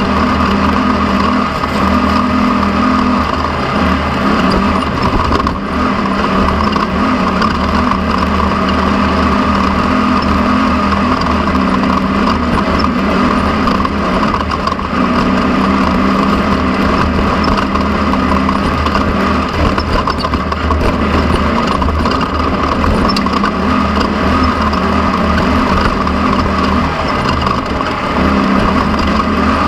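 Off-road race vehicle's engine running hard under a steady loud rush of onboard noise, its note stepping up and down every few seconds as it drives the course.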